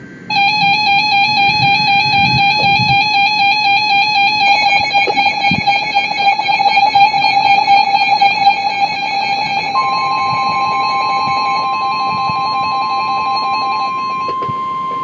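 Emergency alert tones on a weather radio for a severe thunderstorm warning: a loud warbling electronic alarm that thickens about four seconds in. A steady alert tone joins near the end of the warbling.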